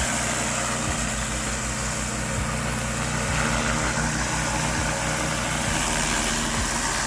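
Pressure washer's Honda GX390 petrol engine running steadily, with the continuous hiss of high-pressure water spray over it.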